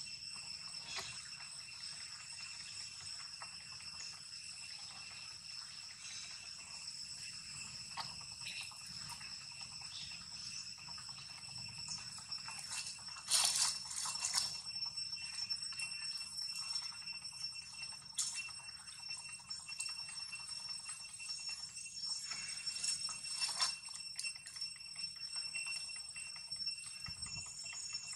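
Steady high-pitched insect chorus from the surrounding forest, several pitches held throughout, with a few faint clicks and rustles, the loudest a little past halfway.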